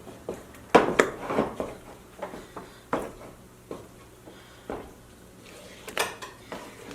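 Wooden stirring stick knocking and scraping against a metal pot while stirring and mashing stiff dhido, in irregular clatters with a cluster of knocks about a second in and another near the end.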